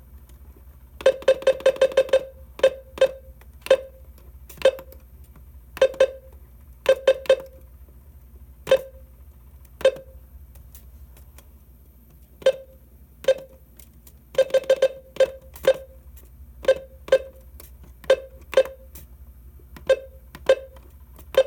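AlertWorks EAR10 weather radio's keypress beeps while its clock is being set: short single beeps, all at the same pitch, at uneven intervals, with quick runs of several beeps in a row about a second in and again around fourteen seconds in.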